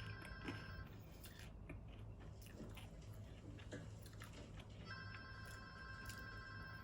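Telephone ringing tone: a steady electronic ring about two seconds long, which ends about a second in and sounds again near the end, with about four seconds of quiet between the rings.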